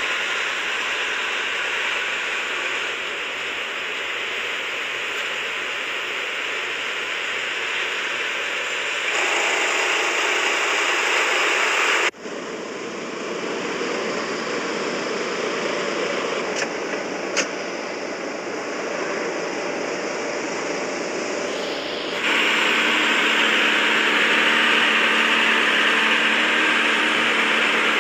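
Off-road vehicle engine running under heavy wind and driving noise, the sound changing abruptly three times as the footage cuts between clips.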